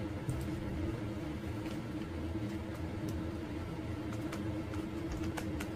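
Steady low background hum holding one constant tone, with a few faint soft ticks scattered through it.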